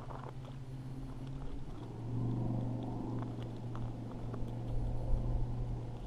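A steady low motor hum, louder from about two seconds in, with a few faint clicks.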